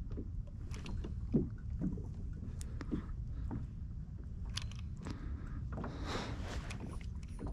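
A steady low rumble with scattered small knocks and clicks from fishing gear being handled aboard a kayak.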